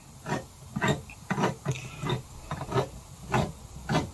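Rhythmic scraping and clicking of kitchen utensil work, about two short strokes a second.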